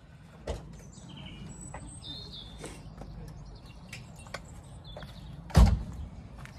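A heavy door thump about five and a half seconds in, most likely the Volkswagen Type 2 van's door being shut, with birds chirping throughout.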